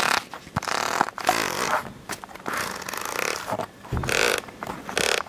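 Irregular bursts of rustling and rubbing noise: a handheld camera being handled and adjusted, with fabric and fingers brushing against its microphone.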